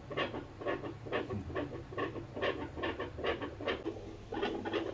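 A dog's chest heard through a stethoscope: a fast, even pulsing, about four beats a second.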